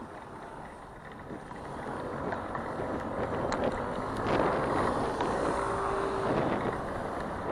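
City street traffic with wind buffeting the microphone on a moving bicycle, the traffic noise swelling from about two seconds in. A few light clicks and a brief steady tone sound a little past the middle.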